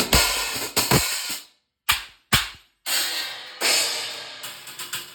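Drum kit being played in irregular single strikes: cymbal crashes ringing out and decaying, with some drum hits. A couple of the crashes are cut off sharply.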